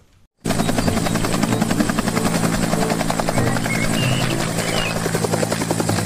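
Bell UH-1 "Huey"-type military helicopter in flight: steady turbine and rotor noise with a rapid, even beat of the main rotor blades. It cuts in suddenly about half a second in.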